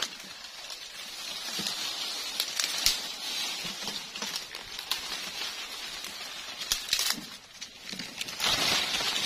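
Leaves and branches rustling and dry leaf litter crackling underfoot as people push on foot through dense undergrowth, with scattered snaps and crunches; it gets louder again near the end.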